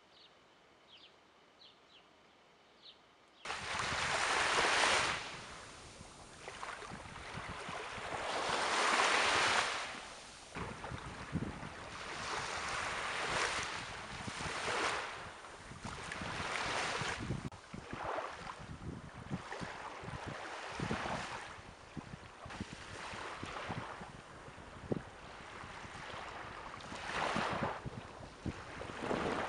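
Small waves washing onto a sandy beach, each surge swelling and fading every few seconds. The first three seconds are near-silent, with a few faint high chirps.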